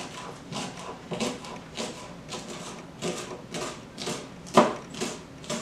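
Knife chopping spring onions on a cutting board: a run of short, even knocks about two a second, one harder stroke about four and a half seconds in.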